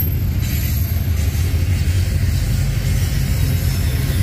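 Steady low vehicle rumble, nearly all of it deep bass, with no distinct events.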